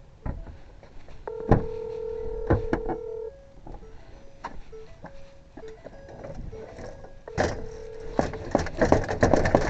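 Phone call ringing out: a ringback tone sounds for about two seconds, then again about four seconds later, the second ring cut short. Short beeps and clicks fall between the rings.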